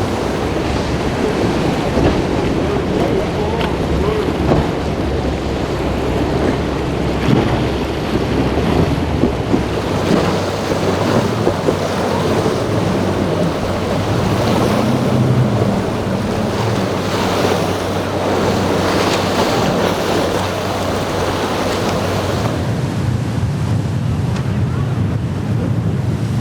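Boat engines running through rough inlet surf, with waves washing and wind buffeting the microphone.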